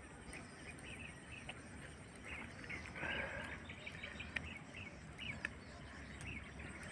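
Faint outdoor ambience with scattered short bird chirps, thickest about three seconds in.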